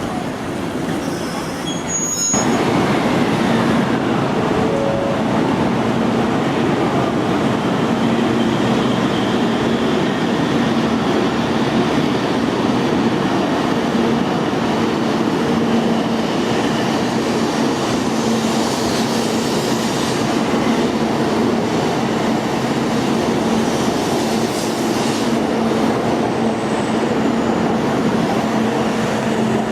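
A train running through a station, a continuous loud rail noise with a steady low hum, rising sharply about two seconds in.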